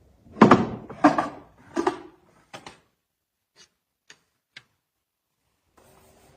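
Small wooden drawers of a black walnut jewelry box sliding and shutting with three solid thunks in quick succession, followed by a few light wooden clicks.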